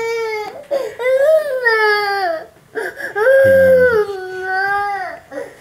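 Toddler crying in four long wailing cries, each rising and then falling in pitch, with short breaks between. The child is crying to be breastfed.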